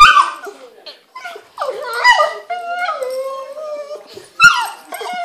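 Boston terrier and pug at play making weird vocal noises: drawn-out pitched cries that waver up and down, with a sharp loud cry at the start and another about four and a half seconds in.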